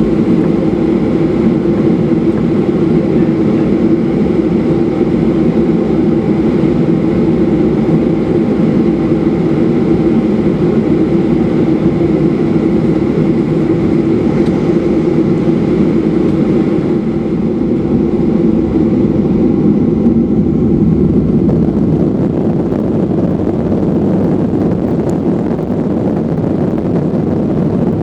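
Steady cabin noise inside a Boeing 737-800 airliner, its CFM56 jet engines running with a constant low drone and rush of air. The upper hiss eases slightly about two-thirds of the way through.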